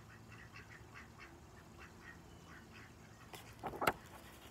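Paper page of a large picture book being turned, a few short rustles near the end. Before it, a faint run of short repeated animal calls, about three a second.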